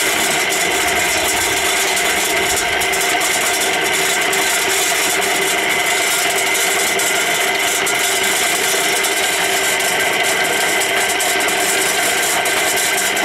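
Drum concrete mixer running steadily, its drum turning and churning a load of mix, with a constant whine and a dense clatter of small clicks.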